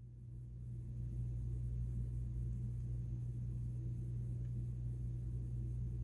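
A steady low hum that swells up over the first second and then holds level.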